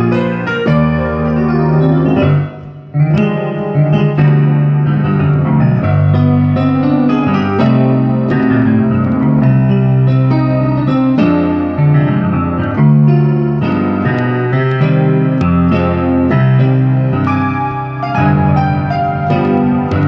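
Electronic keyboard played in an electric-piano sound: a melody and chords over low held bass notes, with a brief pause about two and a half seconds in.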